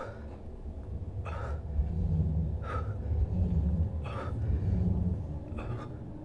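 A person breathing hard during push-ups: one heavy breath about every second and a half, five in all, over a low rumble that swells in the middle.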